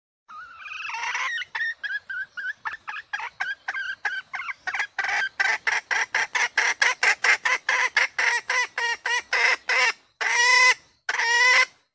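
Female red junglefowl calling. A short warbling note opens a rapid run of short clucks, about four a second, that gets louder about halfway through and ends in two longer, harsher calls. This is the hen's call to summon a male.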